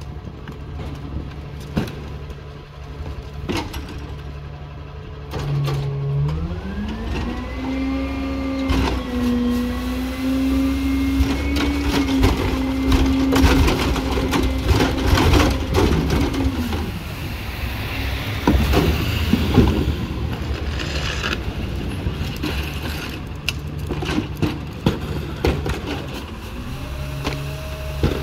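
Rear-loading garbage truck's diesel engine idling, then revving up about six seconds in and holding there for about ten seconds to drive the hydraulics as the cart tippers dump carts, dropping back to idle and revving up again near the end. Clanks and bangs of plastic carts and the tipper mechanism throughout.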